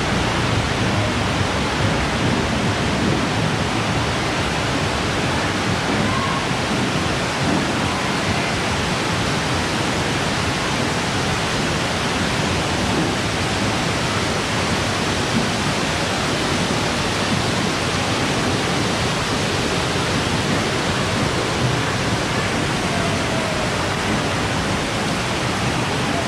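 Heavy rain falling as a steady, even rush, with water pouring off the roof edges onto a flooded walkway.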